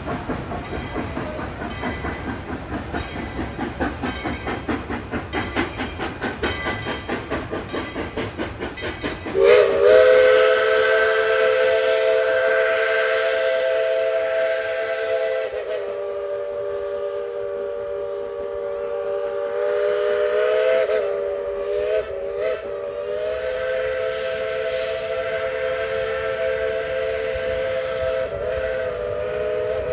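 Narrow-gauge steam locomotive Engine 12 on the move, beating out a steady rhythm of about three beats a second. About nine seconds in, its steam whistle blows a long chord of several tones. It breaks off briefly, gives a couple of short toots, and blows on again.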